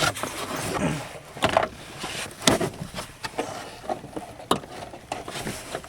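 Scattered knocks and clicks with rustling: hands working a rear seat belt assembly and trim in a car's interior. The sharpest knocks come about a second and a half, two and a half and four and a half seconds in.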